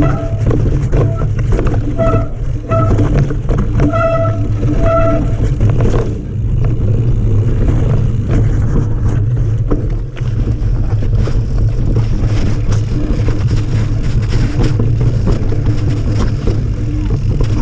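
Mountain bike rattling and clattering down a rough dirt trail, with a heavy steady wind rumble on a chest-mounted action camera's microphone. In the first five seconds a few short high ringing tones come and go.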